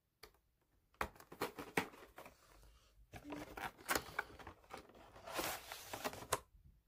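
Cardboard collectible-card box being torn open by hand: a run of sharp clicks and tearing scrapes as the flap and glued seam give way, with a longer, denser tearing rustle about five seconds in.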